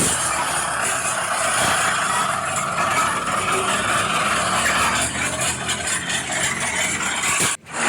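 Radio-controlled scale construction machine running, a steady mechanical whir and rattle with engine-like running noise; it cuts out abruptly for a split second near the end.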